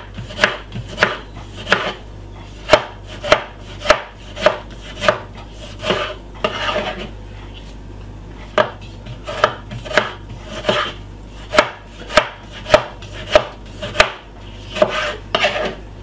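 Chef's knife chopping tomato on a bamboo cutting board: a steady series of knife strikes, about two a second, with a break of about two seconds around the middle.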